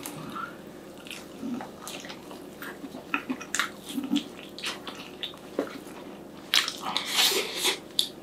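Close mouth sounds of a person biting into and chewing a glazed fried chicken drumstick topped with garlic mayo: wet smacks and chews, with a louder stretch of chewing near the end.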